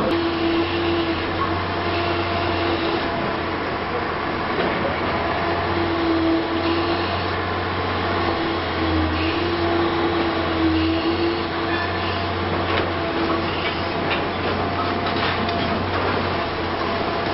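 Liebherr R 960 high-reach demolition excavator working: a steady low diesel drone with a whining tone that wavers in pitch. Scattered cracks and knocks of breaking building material, more of them toward the end.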